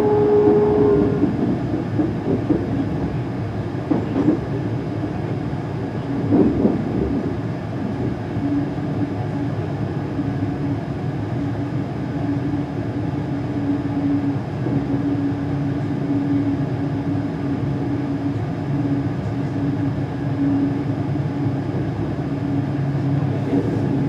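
Cabin sound of a ScotRail Class 385 electric multiple unit running along the line as it slows for a station: a steady rumble of wheels on rail, with a few brief rattles in the first third. A steady hum comes in about a third of the way through and holds.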